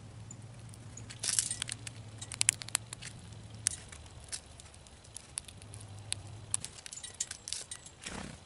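Grey squirrel rummaging in a tray of birdseed and eating: irregular sharp clicks and short rustles of seeds being moved, picked up and nibbled against the plastic tray.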